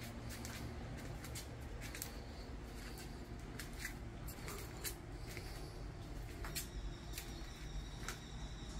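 Light, irregular clicks and ticks, about fifteen of them, over a steady low hum.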